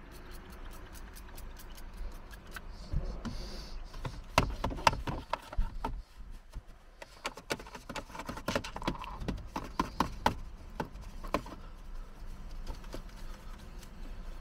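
Irregular light clicks, taps and scrapes of a detailing brush and hands working over a car's plastic centre-console trim and gear selector, busiest about four seconds in and again from about seven to twelve seconds in.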